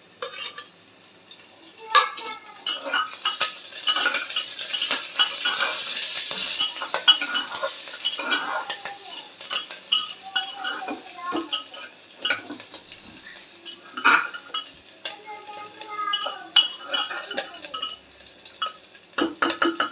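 Metal spatula stirring and scraping sliced onions and green chillies frying in hot oil in a pressure cooker, with a steady sizzle and repeated clinks and scrapes of the spatula against the pot. The sizzle is loudest a few seconds in, just after the chillies go into the oil.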